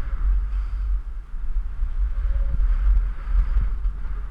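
Wind buffeting the microphone of a camera carried by a moving skier, a heavy low rumble, with the hiss of skis sliding over snow.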